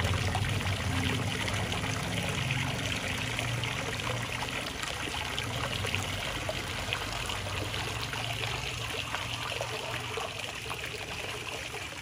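Water spilling in a thin sheet from a slot along a capped PVC pipe and splashing into a fish pond: a steady trickle and splash from a homemade pump-fed waterfall aerator.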